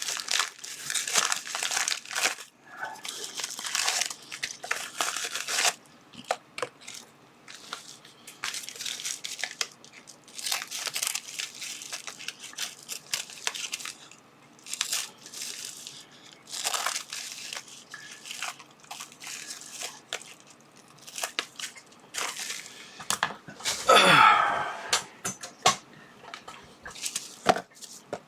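Packaging crinkling and tearing as small parcels are handled and opened by hand, in irregular rustling bursts, with a louder burst about 24 seconds in.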